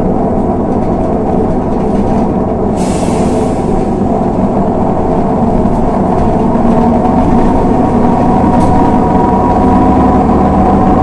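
Inside a LiAZ 6213.22 articulated diesel bus: a steady engine and road drone. About three seconds in, a sudden sharp hiss of compressed air is let out of the bus's pneumatic system and fades over about a second.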